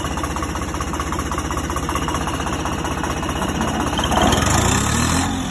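A tractor engine idling with a steady, rapid beat of firing strokes, swelling louder about four seconds in.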